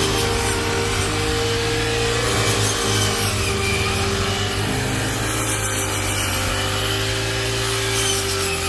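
Rice combine harvester running steadily, a constant machine hum with a rough noisy rasp from its working parts over it.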